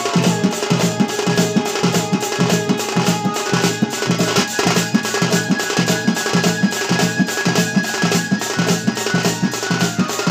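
Sambalpuri dhol drumming in a fast, even rhythm of about three strokes a second, with long held melody notes above it.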